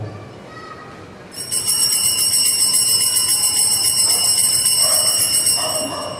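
Altar bells, a cluster of small sanctus bells, shaken in a continuous jingling ring that starts about a second in and fades near the end. They mark the elevation of the chalice at the consecration.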